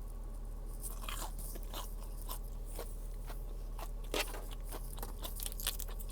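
Close-up crunching and chewing of crispy fried food: a run of crisp crunches starting about a second in, the loudest about four seconds in.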